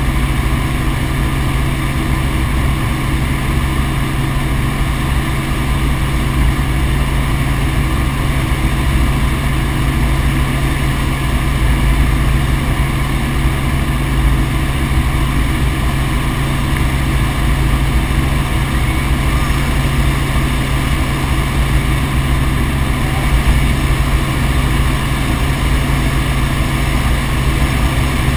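Helicopter in flight: a steady engine and rotor drone that holds the same pitch and level throughout.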